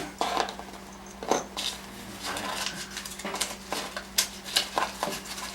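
Small hard parts of a follow focus clicking and knocking together as its gear is handled and fitted on, in an irregular string of sharp clicks and short rustles.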